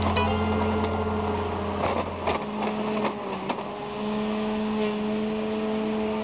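Steady engine hum from nearby yard work, with a deeper rumble under it that drops away about two seconds in. Scattered short rustles and knocks come from a paper yard-waste bag being handled.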